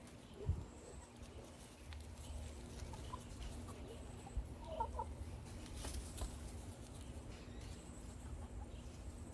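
Chickens clucking faintly, with a short cluster of clucks about five seconds in, over a low rumble.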